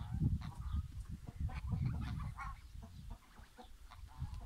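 A flock of farmyard fowl calling in many short, sharp notes, over a low rumble that eases off about halfway through.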